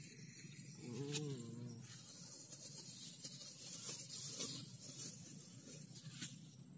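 Thin plastic bag rustling and crinkling as it is handled, with a few sharp clicks, over a steady high insect tone. A brief low voiced hum about a second in.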